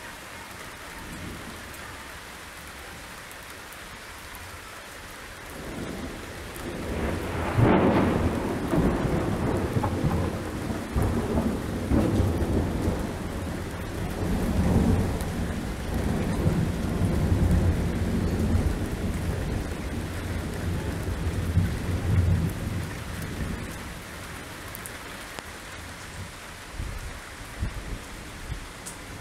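Torrential rain falling steadily, with a thunderclap that builds about five seconds in, cracks sharply near eight seconds, then rolls on in a long low rumble for some fifteen seconds before fading back to the rain.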